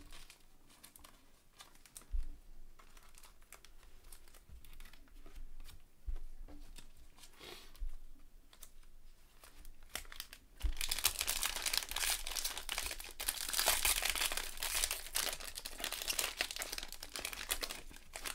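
Trading cards handled and set down on a table with light clicks, then, a little past halfway, the plastic wrapper of a cello pack of football cards crinkling loudly as it is torn open.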